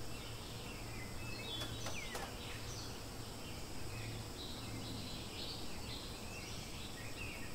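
Outdoor ambience: a steady low hum and a high hiss, with scattered short high chirps, some dropping in pitch. A few sharp clicks come about a second and a half to two seconds in.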